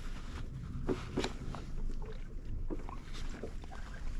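Short knocks and splashes around a kayak as a hooked fish is handled alongside, several in a few seconds, over a low steady rumble of wind and water on the microphone.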